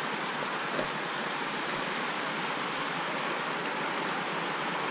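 River water rushing steadily over rocks, an even hiss.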